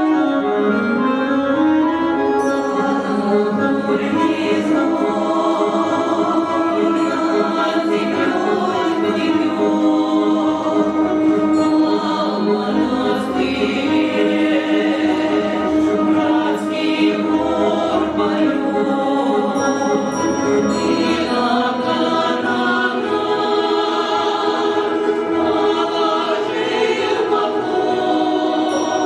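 A choir singing a song in several voices over instrumental accompaniment.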